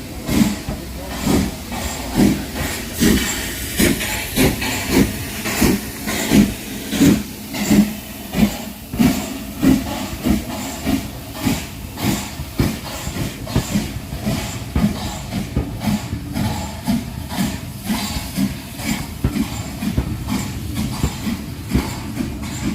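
Steam locomotive Beachy Head, a new-build LB&SCR H2 Atlantic, working with a steady chuff of exhaust beats over a steam hiss, at about one and a half beats a second. The beats grow fainter and a little quicker in the second half.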